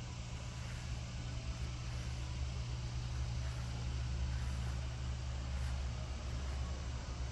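Steady low rumble with a faint even hiss: outdoor background hum.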